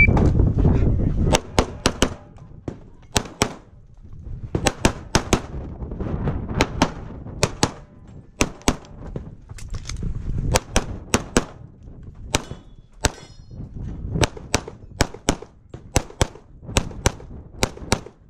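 A shot-timer start beep, then a long string of pistol shots fired rapidly, dozens of them, mostly in quick pairs, as a practical-shooting stage is run.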